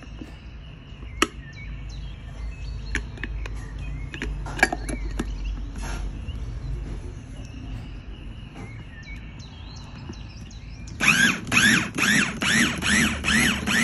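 Clinks and knocks of a glass chopper bowl and its motor lid being handled, with faint bird chirps. About eleven seconds in, a small electric food chopper starts and runs loud, its whine wavering up and down about three times a second as the blade chops chunks of chicken blood.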